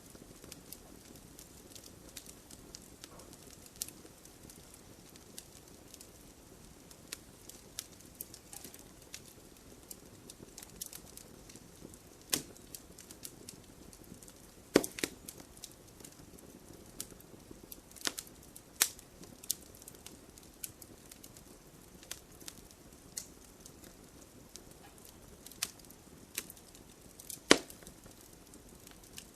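Wood fire crackling: irregular sharp pops and snaps over a soft steady hiss, with a few louder cracks, the loudest near the end.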